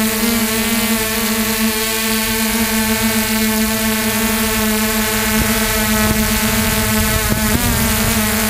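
Electric RC helicopter's motor and rotor heard from its onboard camera, a steady whine with a brief wobble in pitch near the end.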